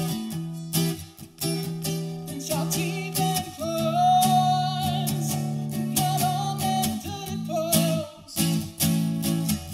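Acoustic guitar strummed in a steady rhythm, with a man singing long held notes from about two and a half seconds in until near the end.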